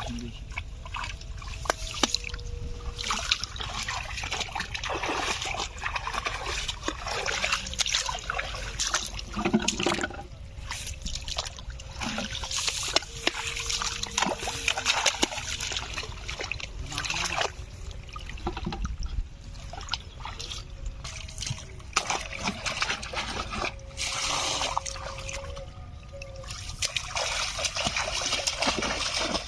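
Water splashing and trickling, with many irregular sharp splashes and drips over a steady wash.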